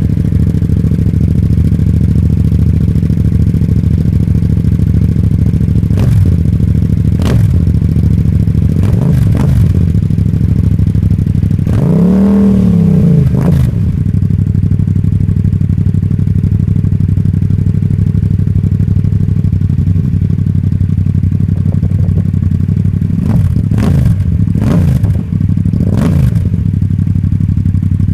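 Yamaha MT-07's parallel-twin engine idling through an Akrapovic titanium exhaust, with a few short throttle blips, one longer rev that rises and falls about twelve seconds in, and three more blips near the end.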